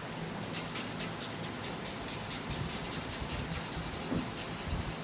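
Quick, repeated scratchy strokes of a colouring tool rubbing back and forth on paper, filling in a shape.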